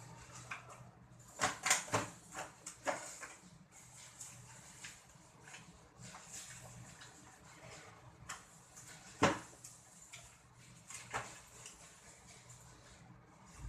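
Intermittent clicks and knocks, with a quick cluster of them in the first few seconds and a single sharper knock about nine seconds in.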